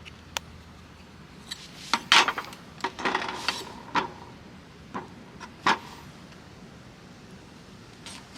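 Scattered knocks and clinks of objects being handled, loudest and busiest about two to four seconds in, then a couple more before it goes quiet.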